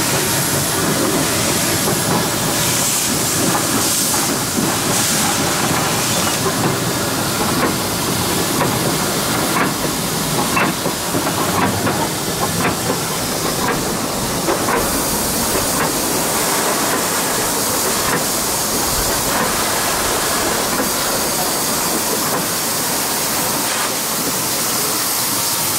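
Steam locomotive heard from its cab: a steady hiss of steam over the noise of the running engine, with scattered sharp metallic clicks and knocks in the middle stretch.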